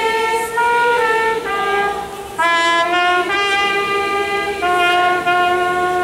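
Trumpet playing a slow melody of held notes that move in steps from one pitch to the next.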